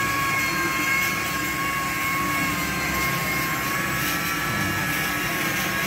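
Steady mechanical drone of a running machine: a low rumble under a whine held at a few fixed pitches, unchanging throughout.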